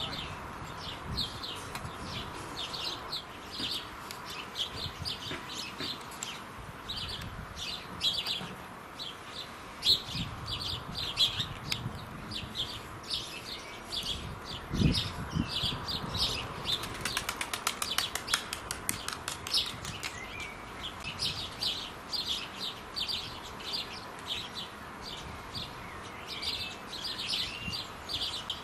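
House sparrows chirping: a steady string of short, high chirps several times a second, with a faster, rattling run of calls a little past the middle. A low thump is heard about halfway through.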